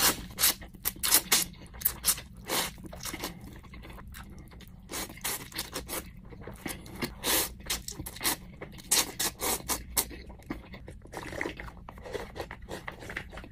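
A person slurping ramen noodles off chopsticks and chewing, a long run of short, noisy slurps. Near the end he drinks broth straight from the bowl.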